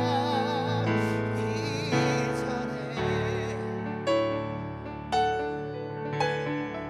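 Worship song with piano: a singer's voice holds the final note of the line with a wide vibrato over sustained piano chords, then after about three seconds the voice stops and the piano plays on alone, striking a chord roughly once a second that rings and fades.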